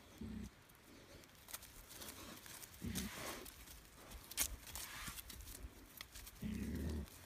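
Pigs grunting low: three short grunts spread across the moment. Scattered light ticks of trotters and rustling on grass fall between them.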